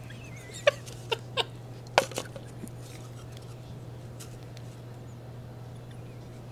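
Two men laughing hard, with a handful of short, squeaky high-pitched bursts of laughter in the first couple of seconds, then quieter stifled laughing over a steady low hum.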